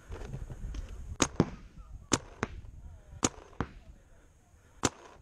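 Paintball markers firing: about seven sharp single pops in loose pairs, roughly a second apart.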